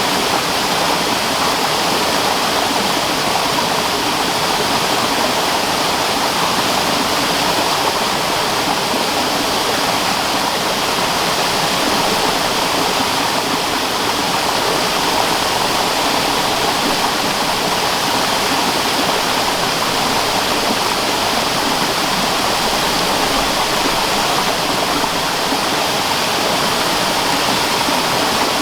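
Waterfall: falling water running as a steady, loud rushing roar without a break.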